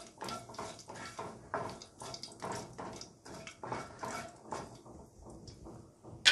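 Cumin and mustard seeds with curry leaves sizzling and crackling in hot oil in a nonstick wok as a tempering, stirred with a spatula against the pan. The crackling thins out and gets quieter about five seconds in, once the stirring stops.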